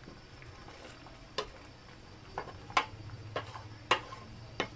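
Wooden spatula stirring thick sambal in a frying pan, knocking against the pan about six times at uneven intervals, over a faint low hum.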